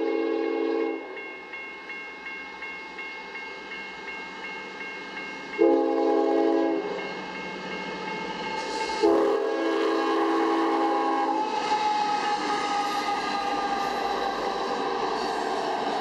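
Union Pacific diesel locomotive horn sounding for a grade crossing: a blast ending about a second in, a short blast around six seconds, and a longer one around nine seconds, over the steady ringing of the crossing-signal bells. The engines and wheels of the double-stack freight train grow louder as it draws close and passes near the end.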